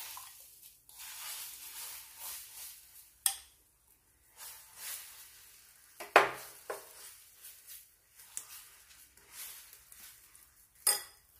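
Beaten egg mixture poured and spread in a hot nonstick pan with a soft sizzle, while a metal spoon scrapes against the glass bowl and the pan. Three sharp clinks of the spoon stand out, the loudest about halfway through.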